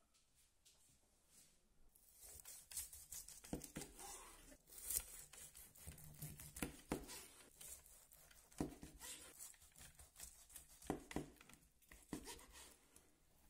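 A chef's knife cutting through a crisp-crusted roast pork roll, the crust crackling and crunching under the blade, with a knock each time the knife comes down onto the cutting board. The cutting starts about two seconds in, with around six knocks.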